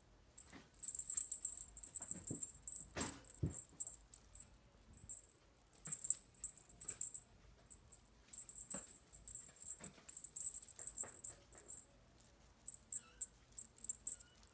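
Kittens playing with a feather wand toy on quilted blankets: bursts of high, crackly rustling come and go, with a couple of soft thumps about three seconds in.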